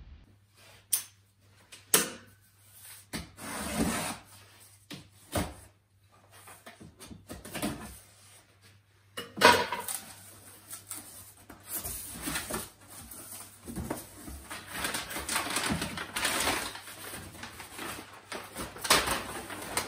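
Cardboard shipping box being handled by hand: scattered knocks and scrapes of cardboard, the loudest about nine seconds in, then steady rustling and crinkling of crumpled kraft packing paper being pulled out of the box.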